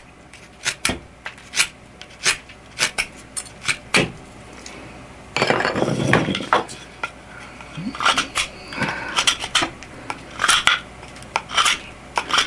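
S30V steel knife whittling bamboo: a run of short, sharp shaving strokes, one or two a second, with a longer scraping stretch a little after the middle.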